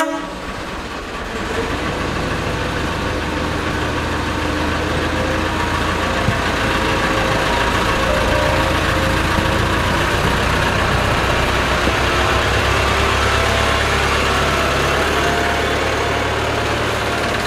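Narrow-gauge diesel locomotive's engine running with a steady low hum as the loco pulls slowly out of its shed. The engine gets louder over the first couple of seconds, then holds steady.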